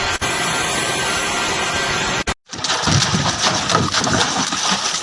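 Metal lathe running as a ball is turned with a cutting tool, an even, noisy hiss; it cuts off suddenly about two seconds in. After a short silence come outdoor voices and handling noise.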